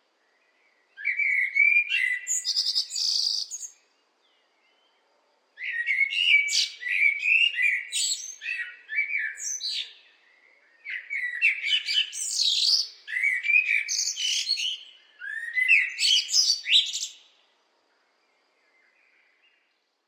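Blackbird singing: three spells of warbled, gliding notes, each mixing lower fluty notes with higher twittering, separated by short pauses.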